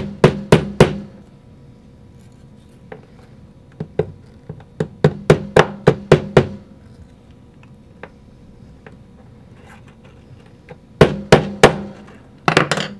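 Sharp, quick taps in short runs of four to eight, a few seconds apart, as a TechT Lightning Rod is tapped down into the plastic ratchet of a paintball loader's Cyclone feed until it sits flush.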